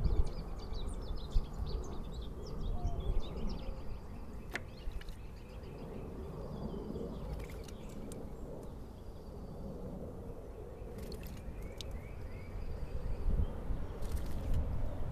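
Small songbirds chirping and twittering, busiest in the first couple of seconds, over a low steady rumble. Near the end come a few sharp splashes as a tufted titmouse bathes in the birdbath.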